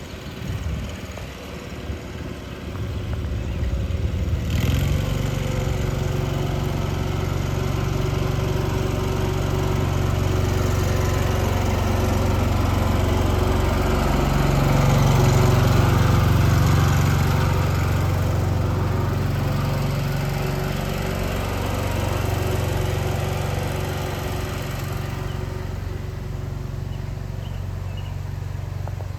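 Briggs & Stratton 16.5 hp twin-cylinder riding-mower engine running. It picks up speed sharply about four and a half seconds in, runs louder and higher around the middle, then settles back to a steady run.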